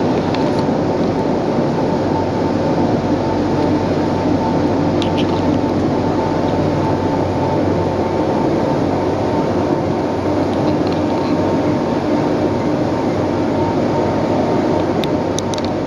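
Passenger boat's engine running steadily underway, an even loud drone with a steady hum, heard inside the cabin.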